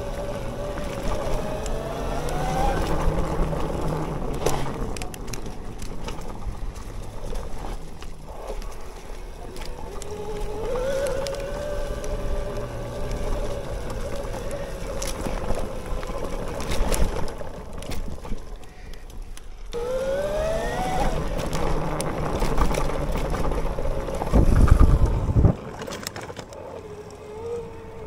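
Bafang BBSHD mid-drive electric motor whining under power, its pitch rising several times as the bike accelerates, sharply about twenty seconds in. Clicks and knocks of the bike over rough ground run through it, and a brief loud low rumble comes about three seconds before the end.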